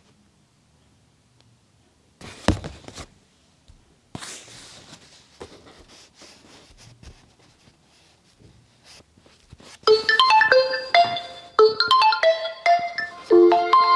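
Oppo Find X3 Pro smartphone ringtone starting to play through the phone's speaker about ten seconds in: a quick melody of short, ringing notes. Before it, a single thunk and a few faint taps and rustles.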